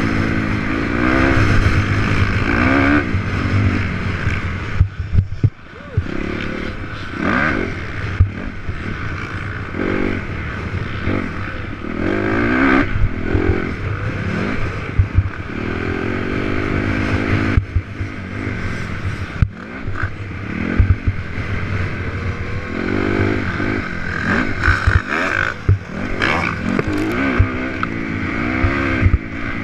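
Honda CRF250R's single-cylinder four-stroke engine revving up and down as it is ridden, its pitch climbing and falling every second or two, with knocks and rattles from the bike over bumps, heard from a helmet-mounted camera. The engine drops back briefly about five seconds in.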